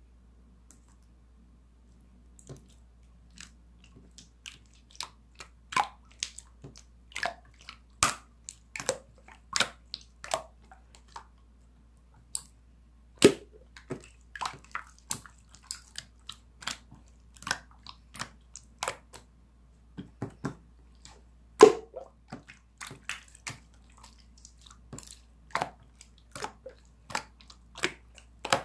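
Slime being squeezed and pressed by hand, giving a run of irregular sharp wet pops and clicks, about one to two a second, starting a couple of seconds in.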